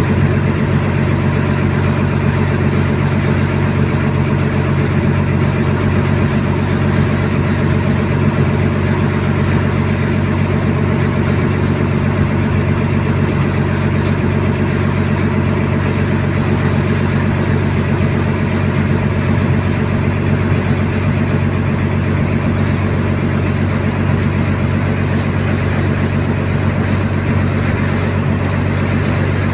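A boat's engine running steadily, heard from on board, with a constant low hum and no change in speed.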